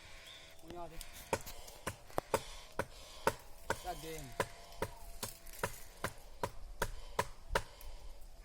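A blade chopping into wood in a quick run of sharp strikes, about three a second, starting about a second in.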